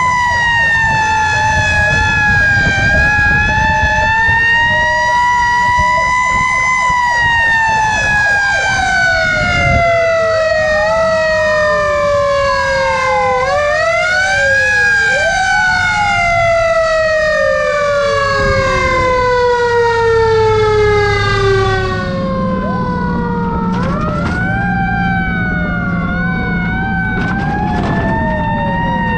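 Fire truck sirens sounding together: one siren tone slowly sinking in pitch over many seconds while other siren wails sweep up and down across it, over the low rumble of the trucks' engines.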